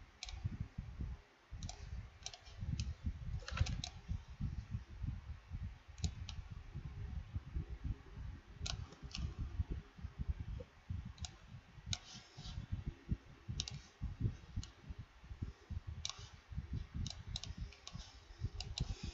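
Scattered clicks of a computer mouse and keyboard, some single and some in quick pairs or short clusters, a second or more apart, over a low, uneven rumble.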